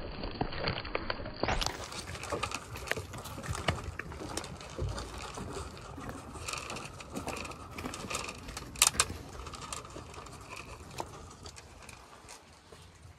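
Irregular footsteps and knocks on soft muddy ground close to the microphone: sheep hooves at first, then wellington boots and dogs moving about. One sharp knock about nine seconds in is the loudest.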